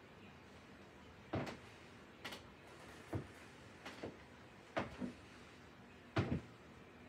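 Short knocks and thuds, six or so spaced about a second apart, several in quick pairs, over quiet room tone; the loudest comes near the end.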